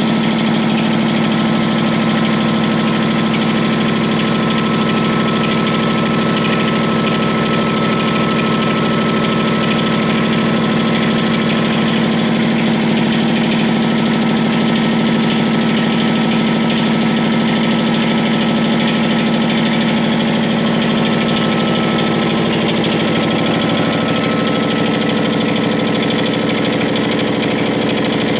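Champion HRA25-12 25 hp air compressor running steadily: a continuous mechanical drone from the reciprocating pump with a thin steady whine above it, its tone shifting slightly about 23 seconds in.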